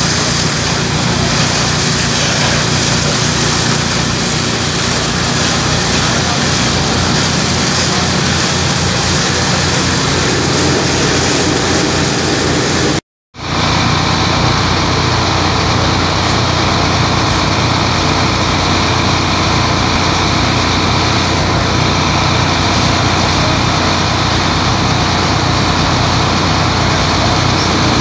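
Fire apparatus diesel engines running steadily and loud at high idle while pumping water to hose lines and an aerial master stream, over a constant hiss. The sound cuts out briefly about thirteen seconds in.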